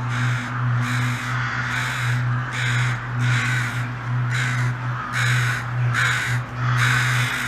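Crows cawing over and over, harsh calls about two a second, over a steady low hum.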